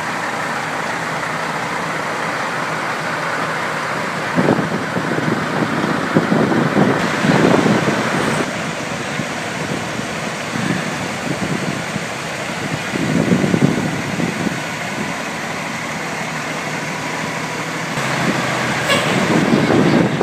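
Heavy semi-trailer trucks with diesel engines driving slowly past one after another. The engines swell louder several times as each truck goes by.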